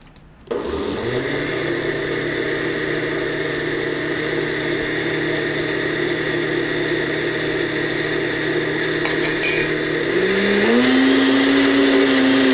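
Countertop blender with a glass jar puréeing a liquid cucumber and coconut-milk soup. The motor starts about half a second in, spins up and runs steadily, then shifts to a higher speed near the end, its pitch stepping up and getting louder.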